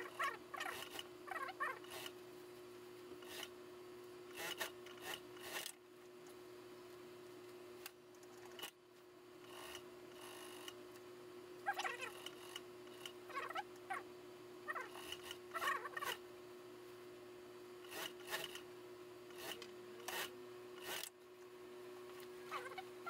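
Wool suit fabric and jacket lining rustling and rubbing as they are handled and slid across a sewing machine table, in irregular clusters with small clicks. A steady hum runs underneath.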